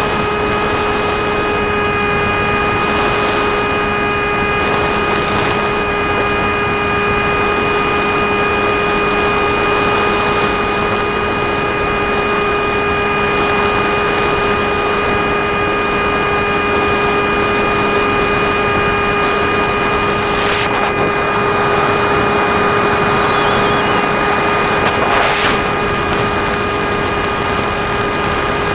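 Electric motor and propeller of a Firstar 2000 RC plane running at a steady throttle, heard from the plane's onboard camera: a constant whine with a high buzzing edge, over wind rush on the microphone. The high part of the whine drops away for a few seconds near the end.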